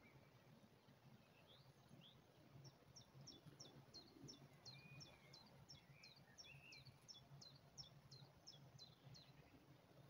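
Faint outdoor ambience with a small songbird singing a long run of quick, high, falling notes, about three a second, starting a few seconds in and stopping near the end. Other birds call briefly, over a steady low hum.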